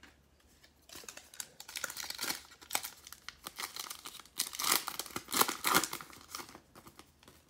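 Foil wrapper of a Panini Mosaic football card pack being torn open and crinkled by hand: a run of crackling rustles that starts about a second in and is loudest a little past the middle.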